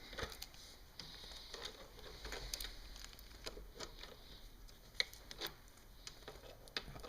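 Faint, irregular metal clicks and taps of an adjustable wrench working on a bicycle pedal as it is tightened into the crank arm.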